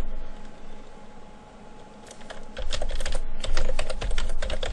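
Typing on a computer keyboard: a quick run of key presses starting about two seconds in, after a short lull.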